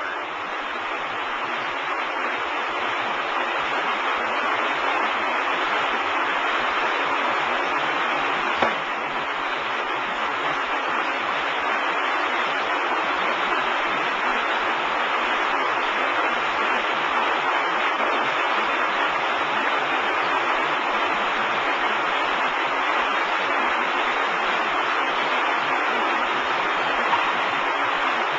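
W & H tilt-tray sortation conveyor running: a steady, even rushing noise from the carousel of trays, swelling slightly over the first few seconds, with one brief knock about nine seconds in.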